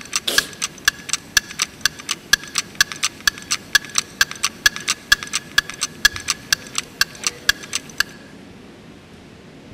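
Countdown-timer ticking sound effect marking an audience voting period: sharp, evenly spaced ticks, about three a second, that stop about eight seconds in.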